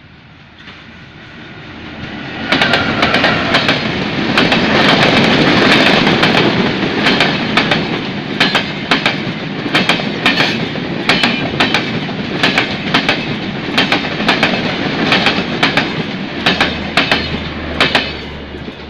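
Passenger train passing close by: the rumble swells over the first couple of seconds, then a loud steady roar of wheels on rail with sharp clickety-clack beats about twice a second as the coaches' wheels cross the rail joints. A low hum joins near the end before the sound fades as the last car goes by.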